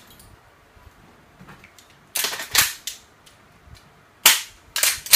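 Sharp clacks from the airsoft rifle being handled, in two quick groups of a few each, about two seconds in and again about four seconds in.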